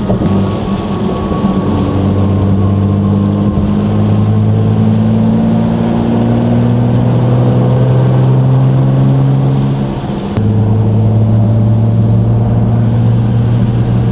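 Nissan GT-R R35's twin-turbo V6 heard from inside the cabin while cruising in the rain: a steady engine drone whose pitch rises slowly. About ten seconds in, the note changes abruptly after a short dip in level.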